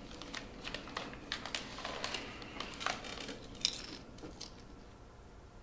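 Clothing rustling with small clicks and knocks as a person shifts and settles his head down to rest, growing fainter and dying away about four seconds in.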